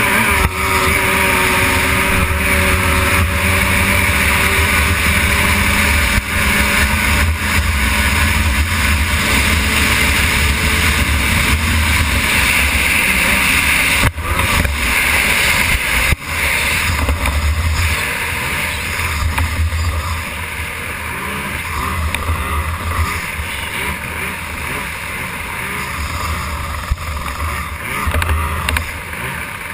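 Outboard engine of a stock-class racing hydroplane running at speed, heard from a camera mounted on the boat, mixed with wind and water rushing past. It drops out briefly twice near the middle and gets quieter from about two-thirds of the way in.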